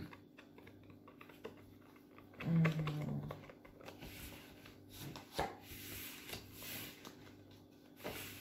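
Faint clicks and rustles of Uno playing cards being handled and laid down. A short low hum of a voice comes about two and a half seconds in.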